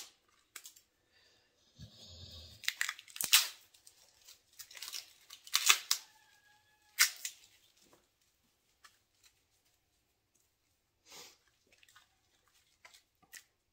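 A new roll of duct tape being picked at and peeled, giving short ripping and scratching sounds in separate bursts with pauses between, and a quiet stretch in the second half.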